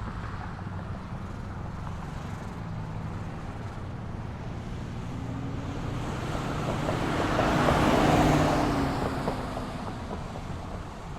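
Quiet street at night: a steady low hum of distant road traffic, with a car approaching and passing by, loudest about eight seconds in before fading away.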